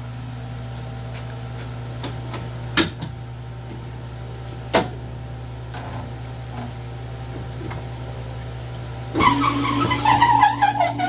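Cylinder honing machine humming steadily, with two sharp clicks. About nine seconds in, the hone starts up, much louder and rougher, with a steady whine under scattered grinding noise.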